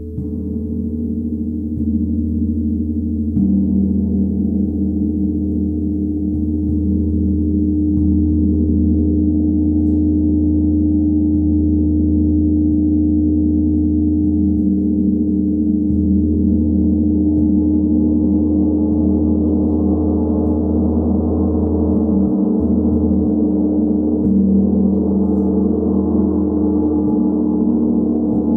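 A 90 cm hammered Tibetan gong played with a soft round mallet, its deep many-toned drone swelling over the first few seconds and then held up by repeated light strokes. A shimmer of higher overtones grows in the second half.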